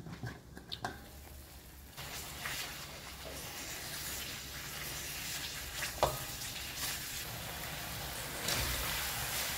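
Chilli paste sizzling as it fries in a steel wok and is stirred with a spatula. The sizzle comes in about two seconds in, with a short knock of the spatula about six seconds in.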